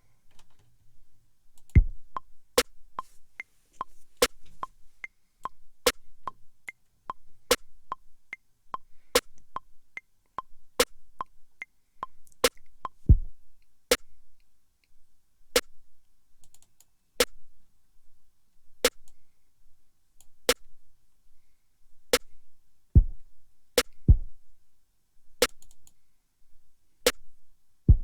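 Electronic drum samples playing from Maschine: a sparse beat of short, sharp percussion hits about every 0.8 s, with a few deep kick drums falling at uneven places, the loudest about two seconds in.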